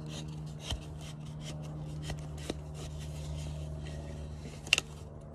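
Rope rubbing and rustling against a crab/lobster float as it is handled and pushed through, with a few sharp clicks, the loudest near the end. A steady low hum runs underneath.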